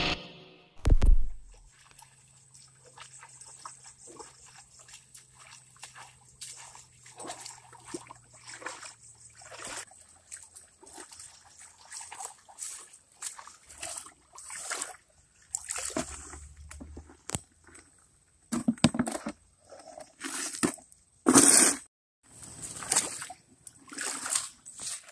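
A short, loud intro sound effect in the first second or so, then feet wading and splashing through shallow stream water in irregular sloshes, the loudest splashes in the second half.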